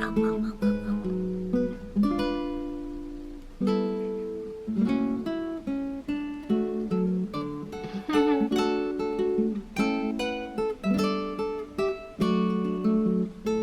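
Background music: acoustic guitar picked and strummed in a steady flowing pattern.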